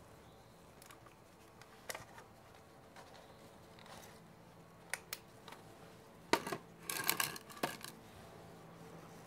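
Scattered metal clinks of hand tools, sockets and bolts being handled, with a short flurry of clatter about six to eight seconds in.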